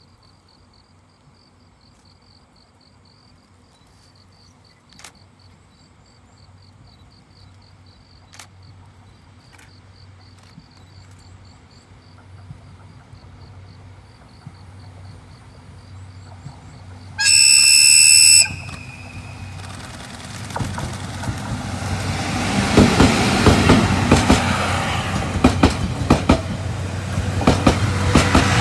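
A JNR ED75 AC electric locomotive hauling 12 series coaches draws near with a rumble that grows steadily louder, over faint high chirping. About two-thirds of the way in it gives one high-pitched horn blast lasting a little over a second. Then the train passes close by, loud, its wheels clattering over the rail joints.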